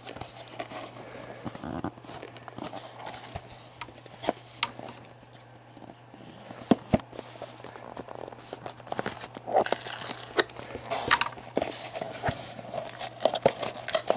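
Cardboard booster box of miniatures being turned over and pried at by hand: scattered clicks, scrapes and crinkles of packaging, getting busier and louder in the second half, over a faint steady low hum. The box's tamper-resistant packaging is resisting being opened.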